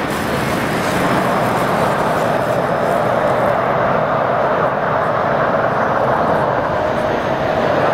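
Twin turbofan engines of an Embraer regional jet running at low taxi power, a steady jet rush with no change in level.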